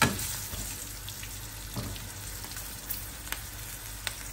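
Hot oil sizzling steadily as kebabs deep-fry in a karahi beside green chillies frying in a small pan. A sharp metal knock right at the start as a utensil hits the pan, then a few lighter clicks.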